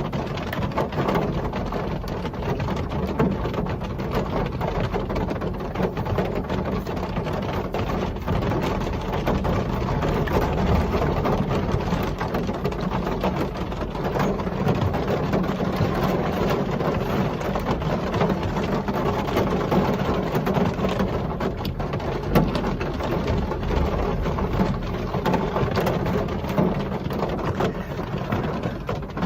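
Steady real rain falling, an even hiss with many small drop ticks throughout.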